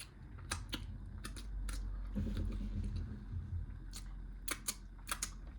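Close-miked mouth smacking while chewing a burrito: sharp wet clicks of lips and tongue come in two bunches over a low, steady chewing sound.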